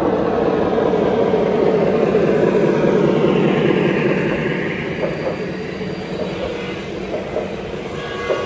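Three-rail model train running past on its track: a steady rolling rumble that swells about three seconds in and then eases off, with a few light clicks in the second half.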